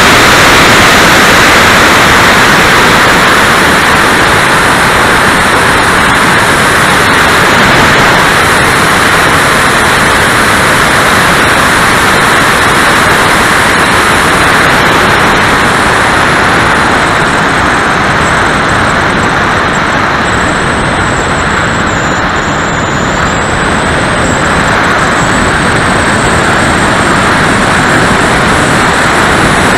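Twin 70 mm electric ducted fans of an E-flite Su-30 model jet, heard from on board in flight: a loud, steady rush of fan and air noise, with a thin high whine that wavers in pitch in the later part.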